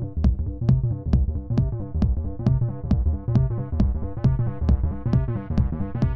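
Electronic background music with a steady driving beat: a hi-hat tick about twice a second over a heavy synth bass, with the upper synth growing brighter toward the end.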